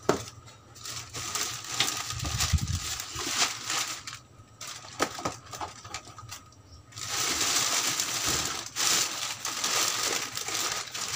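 Light clicks and taps of small boxes being handled and set down, then from about seven seconds in the dense, continuous crinkling of a black plastic bin bag as hands rummage inside it.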